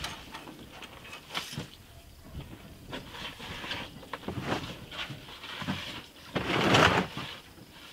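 Bolt cutters working at wire mesh: a scatter of short clicks and snips, with one louder noisy rush of under a second about six and a half seconds in.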